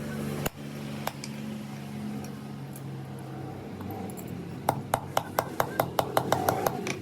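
Quick, light metal-on-metal strikes, about five a second for roughly two seconds, starting about two-thirds of the way in, like a hammer tapping on steel. A steady low hum is heard in the first half and dies away before the strikes begin.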